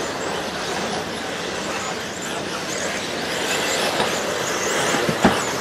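Several 1/10-scale electric 4WD off-road RC buggies racing: a steady high whine of motors and tyres on dirt, with one sharp knock about five seconds in.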